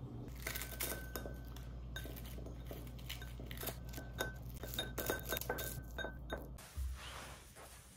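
Kitchen scissors snipping brittle freeze-dried smelt into a ceramic bowl: a quick run of crisp cuts and clinks of the blades against the bowl, stopping about six and a half seconds in. The dried fish crumbles easily under the blades.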